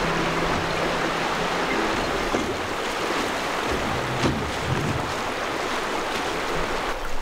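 River water rushing steadily over riffles, an even hiss of moving current.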